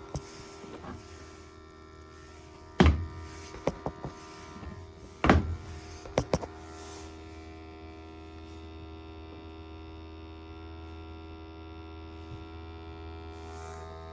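A steady electrical hum with many even tones. Two sharp knocks sound about 3 and 5 seconds in, with a few lighter clicks between and after them; from then on only the hum continues.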